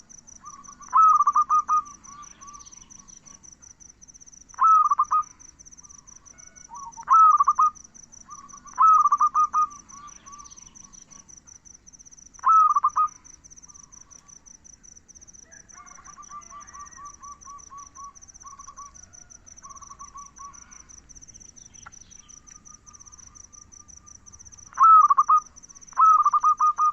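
Zebra dove (perkutut) cooing in loud, short, repeated phrases about a second long, several seconds apart, with softer cooing in the middle stretch. Over it runs an insect's steady, high, pulsing trill.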